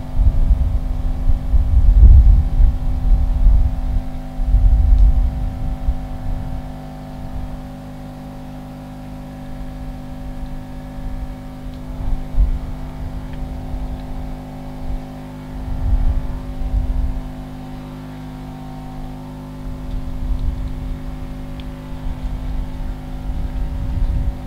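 A steady machine hum runs throughout, with irregular low rumbles that come and go, strongest a couple of seconds in and again past the middle.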